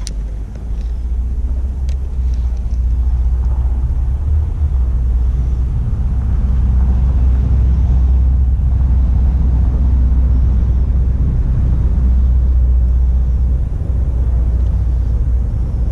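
Wind buffeting the camera's microphone: a loud, steady low rumble with little above it.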